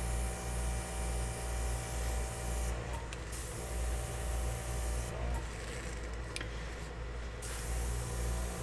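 Airbrush blowing a steady hiss of air, with its compressor humming underneath; the air hiss cuts off briefly about three seconds in and again for about two seconds past the middle, while the compressor keeps running.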